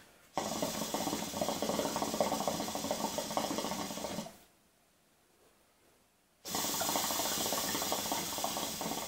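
Hookah water bubbling in the base as the smoker draws through the hose: two long pulls, the first about four seconds long, the second starting about six and a half seconds in, with a short pause between.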